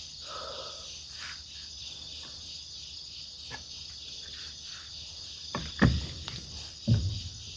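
Steady high-pitched chorus of insects, with two heavy footsteps on the ground near the end.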